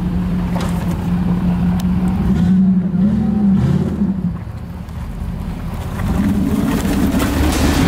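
1994 Jeep Grand Cherokee ZJ's 5.2-litre V8 engine running under throttle as it crawls over steep rocky ground. The note holds steady, lifts briefly about three seconds in, eases off and quietens around four to six seconds, then picks up again.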